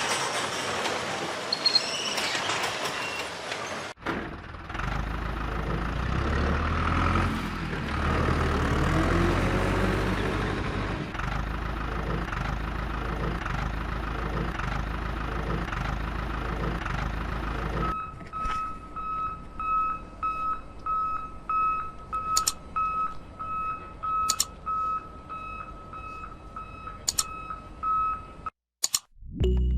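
A large vehicle's engine running with some rise and fall in pitch. About halfway through it gives way to a reversing beeper sounding about twice a second for roughly ten seconds, with a few sharp clicks over it.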